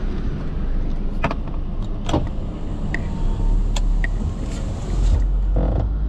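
A car driving slowly on a paved street, heard from inside the cabin: a steady low engine and road rumble that deepens about three seconds in. A few short, sharp clicks sound over it.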